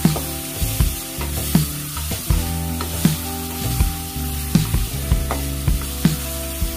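Chicken pieces sizzling in oil in a nonstick pot while a wooden spatula stirs them, with sharp knocks and scrapes of the spatula against the pan every half second to a second.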